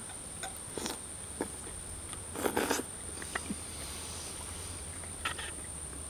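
Insects trilling in a steady, high continuous drone. Over it come a few small clicks of a fork against a metal cup and a short scrape or slurp about two and a half seconds in, from eating stew out of the cup.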